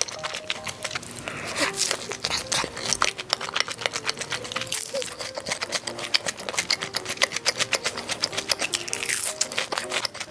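Close-up wet clicking and smacking of someone chewing sticky rice cake, in rapid, uneven strokes, over light background music with a simple melody.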